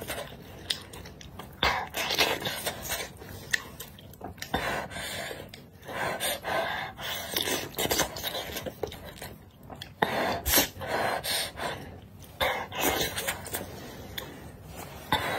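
Close-up eating sounds: wontons slurped from a spicy broth, wet chewing and quick breaths in between, repeating in bursts every second or two, with a few sharp clicks.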